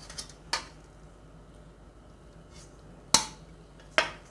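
Three short, sharp knocks of a metal colander against a frying pan as pasta is tipped in: a light one about half a second in and two louder ones near the end.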